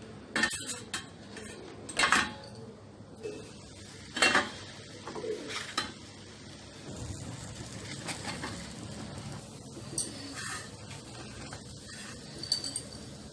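Steel wire-mesh skimmer and steel plates clinking and scraping as fried puris are lifted out and set down, several sharp clinks a second or more apart.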